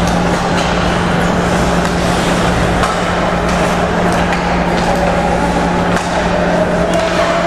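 Ice hockey arena ambience during play: a loud, steady hiss and hum, with a few faint knocks from sticks and puck on the ice.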